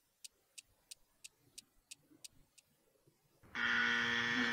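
Quiz countdown timer sound effect: clock-like ticks about three a second, stopping after about two and a half seconds, then a loud steady buzzer tone for about a second, the signal that time is up.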